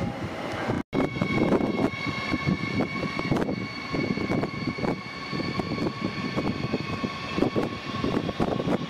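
Siemens Desiro HC electric multiple unit (RRX, class 462) running, its electric drive giving a steady whine in several high tones over a rougher lower rumble. The sound drops out for an instant about a second in.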